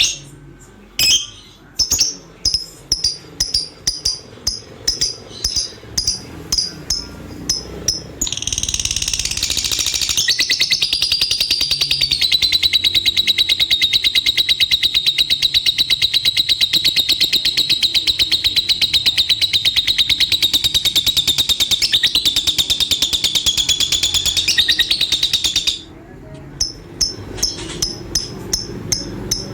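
Lovebird calling in short high chirps that come faster and faster, then breaking into one long, unbroken, very rapid high chatter (the 'ngekek' song) lasting about seventeen seconds. It stops abruptly, and separate chirps follow.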